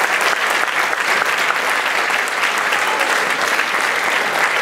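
Audience applauding, a dense steady clapping that does not let up.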